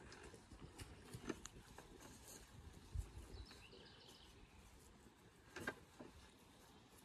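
Mostly quiet, with a few faint knocks and taps from wooden ladders and beams being handled on a timber greenhouse frame: one about a second in, a low thump about three seconds in, and another near the end.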